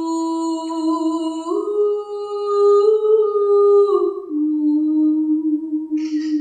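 A woman's voice singing long, wordless held notes, close to humming. One note steps up about a second and a half in, rises a little further, then drops to a lower note held to the end. A short breathy hiss comes near the end.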